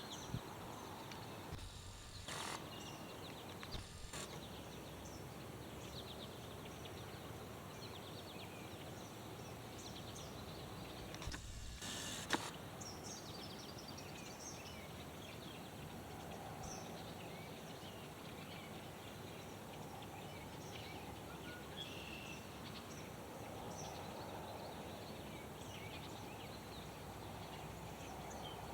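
Many small birds chirping faintly and sporadically over a steady outdoor background hiss. A few brief thumps come through, twice in the first few seconds and once, louder, about twelve seconds in.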